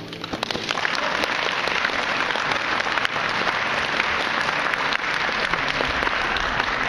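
Audience applauding, building up quickly in the first second and then steady.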